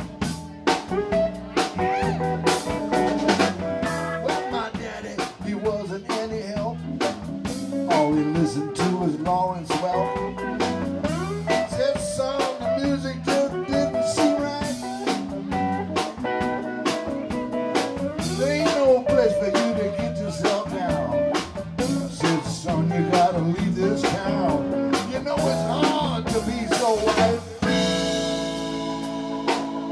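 Live band playing an instrumental: Hammond B-3 organ and electric guitar over bass and drum kit, with steady drum hits throughout. Near the end a chord is held.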